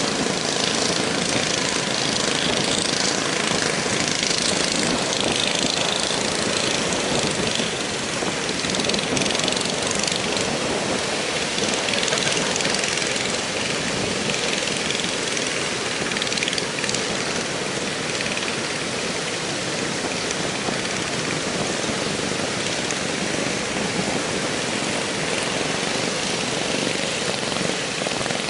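Heavy surf breaking on the beach with strong wind rushing over the microphone, a steady noise that barely changes in level.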